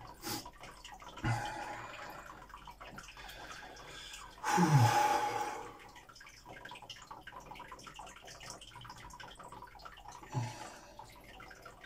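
Man sitting in an ice-water bath, breathing: about four and a half seconds in, a long breathy sigh that falls in pitch, with short low sounds from his throat about a second in and near the end. Faint water movement and drips from the bath.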